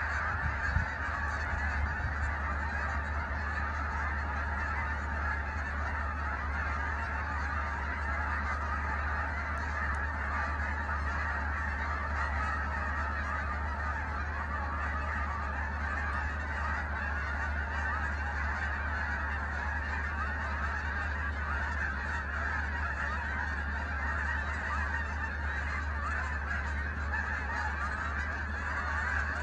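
A large flock of geese honking continuously, many calls overlapping into one steady clamour, with a steady low rumble underneath.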